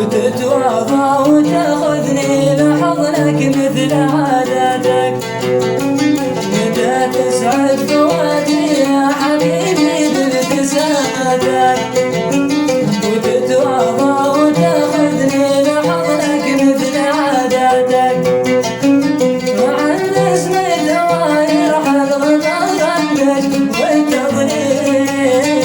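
Mashqasi sawt, a Hadrami sung style: a man singing a wavering, ornamented melody over a plucked string instrument.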